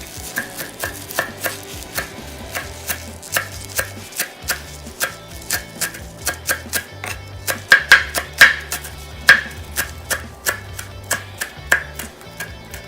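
Knife chopping kale on a cutting board: a run of quick, uneven knocks of the blade striking the board, the hardest strokes about two-thirds of the way through.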